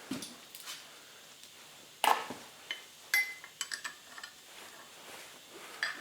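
Metal grinder parts and hand tools knocking and clinking against each other and the bench as they are handled: a sharp clank about two seconds in, then a quick run of ringing clinks.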